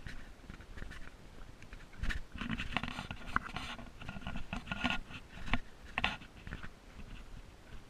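Footsteps crunching and scraping on a trail, in an uneven series of steps.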